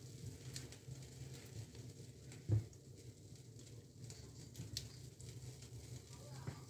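Spatula stirring thick rice-flour batter in a glass bowl: soft scraping with light clicks against the bowl, and one louder knock about two and a half seconds in. A low steady hum runs underneath.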